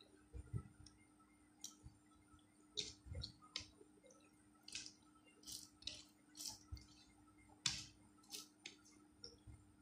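Wet squishes and sharp little clicks of fingers mixing rice with potato bhaji and curry on a plate, in irregular short bursts, the sounds of eating rice by hand.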